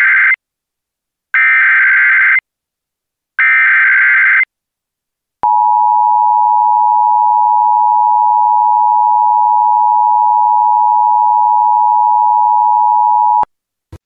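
Emergency Alert System broadcast signals. First the SAME header's digital data bursts, sent three times about a second each with a second's gap between them. Then the two-tone attention signal holds steady for about eight seconds and cuts off; together these announce an incoming emergency alert message.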